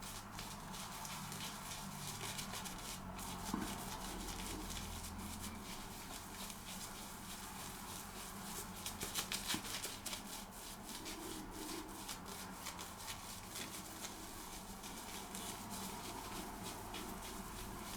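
Simpson Chubby 2 synthetic shaving brush working soap into lather: faint, rapid crackly swishing of wet bristles, a little louder about nine seconds in.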